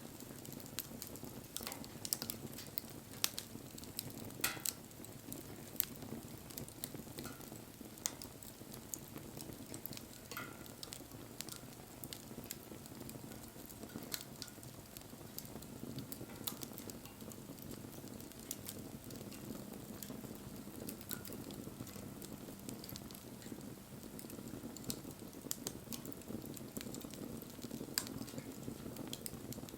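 Wood campfire burning, with a steady low rush of flame and frequent sharp crackles and pops from the burning wood. A faint thin whistle comes a couple of times early on.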